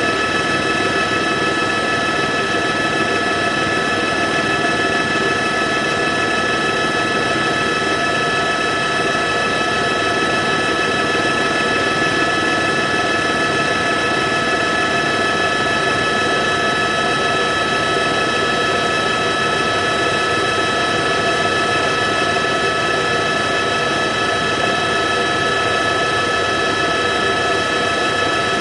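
Helicopter running steadily, heard from on board: a constant engine and rotor noise with several steady high-pitched whining tones over it.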